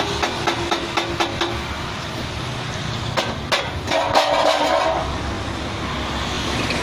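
A quick run of light taps, about five a second, then a few more knocks and a brief squealing scrape, over a steady low hum of traffic or engines.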